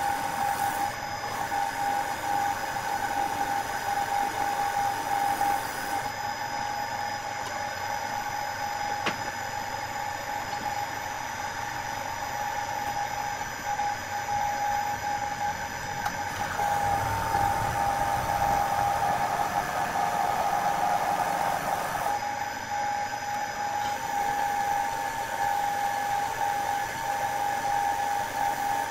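Wood lathe running with a steady high whine as the wooden blank spins. At times a burn wire rubs against the spinning wood in its grooves; it gets rougher for a few seconds past the middle.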